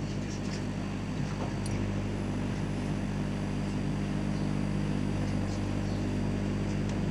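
Microwave-oven magnetron rig powered up and running: a steady mains hum from its high-voltage transformer with a hiss over it and a few faint ticks.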